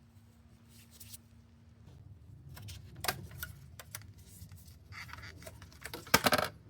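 A series of light clicks and short rattles, like parts or tools being handled, with the loudest burst of rattling about six seconds in, over a faint low hum.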